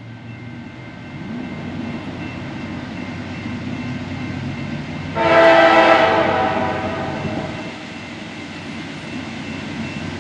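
Rumble of approaching trains growing louder, cut through about five seconds in by one long blast of a diesel locomotive's multi-chime air horn that fades away over a second or two.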